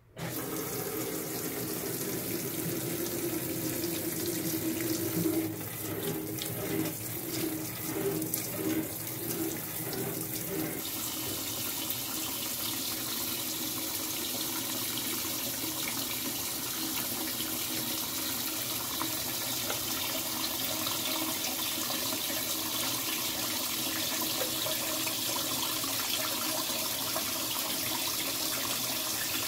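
LG Twin Wash Mini washer filling, water pouring into the drum onto the clothes with a steady rush that starts suddenly. A low hum runs under the water for roughly the first ten seconds, then only the even rush of water remains.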